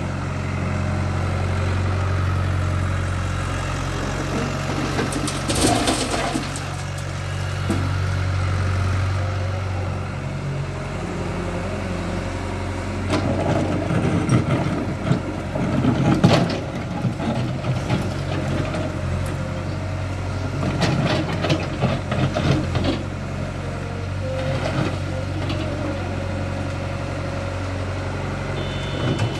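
Compact crawler excavator's diesel engine running steadily, with the bucket scraping and knocking against broken asphalt and stones in several bouts, the loudest about halfway through.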